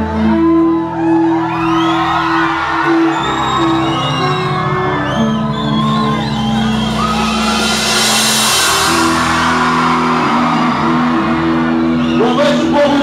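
A live band playing long held chords while a large crowd screams and cheers over it, with a cymbal-like wash about two-thirds of the way in and drum strikes near the end.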